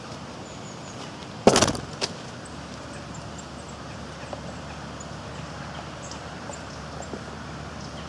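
Eurasian nuthatch leaving a wooden feeding board right by the microphone: a sudden loud burst of wing noise about a second and a half in, then a single sharp tap. Faint high bird chirps over a steady outdoor background.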